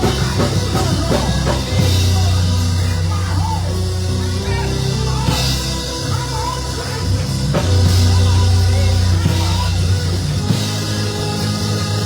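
Live church band playing an upbeat praise break after the call to shout: a drum kit with cymbal hits over long, held low bass notes.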